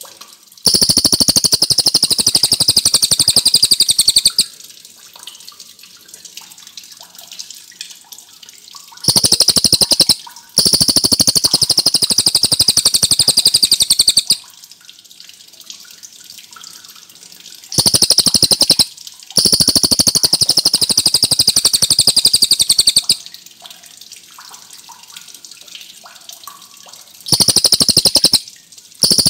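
A cililin bird singing loud, very fast rolling trills of high repeated notes, in bouts of one to four seconds separated by pauses of a few seconds.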